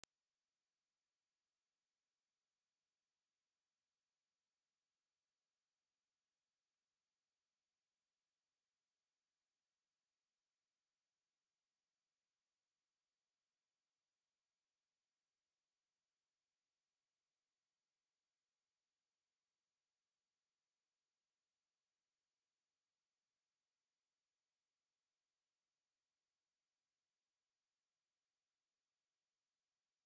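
A pure 11,812 Hz sine-wave test tone: one steady, very high-pitched tone at constant level, used as a speaker test and speaker-cleaning tone.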